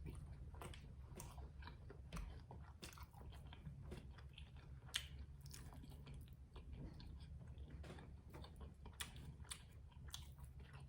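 Faint, close-miked chewing and biting of a stuffed tortilla quesadilla: irregular soft mouth clicks and smacks with an occasional crunch, over a low steady hum.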